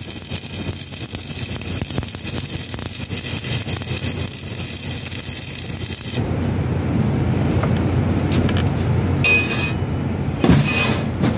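Electric arc welding on a steel bracket: a steady crackling hiss that cuts off abruptly about six seconds in as the arc is broken. After it, a louder low rumble remains, with a few knocks near the end.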